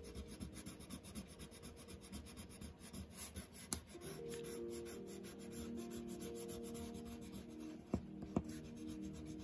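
Faint, rapid back-and-forth scratching of a colored pencil on paper as color is laid down in short strokes. Two light clicks come near the end.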